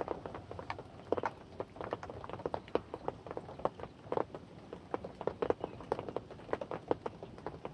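Rain pattering: heavy drops landing close by in irregular taps, several a second, over a soft steady hiss of rain.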